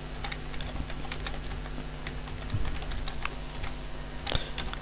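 Typing on a computer keyboard: irregular key clicks, a few a second.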